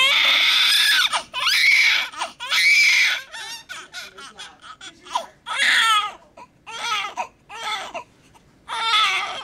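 Newborn baby crying: three long wails close together, then a string of shorter cries broken by brief catches of breath.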